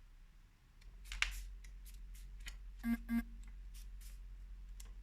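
Oracle cards and paper being handled: a series of light swishes and flicks. About three seconds in come two short, low beeps in quick succession, which are the loudest sounds.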